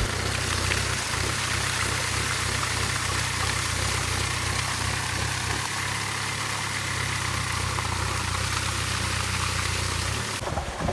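Water gushing from a large irrigation pipe and splashing onto a tractor and its rotavator, over the steady low running of an idling engine.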